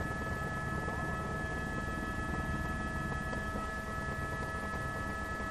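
A steady, unchanging whining hum of several fixed tones over an even rushing noise and a low rumble, fading in just before it starts.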